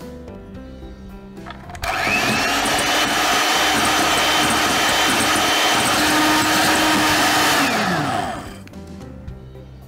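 Electric hand mixer switched on about two seconds in, its motor whining up to speed and running steadily as the beaters whip egg whites into meringue at firm peaks, then winding down and stopping near the end.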